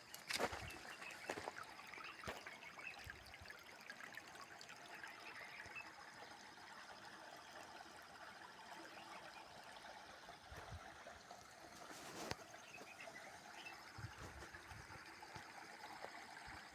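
Faint trickling water, with a few sharp clicks.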